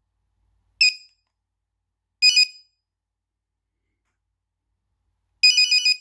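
Nokia 2275 mobile phone playing preloaded ringtones through its small speaker in short electronic beeps. One brief note sounds about a second in and a quick double note a second and a half later. A longer run of rapid notes starts near the end.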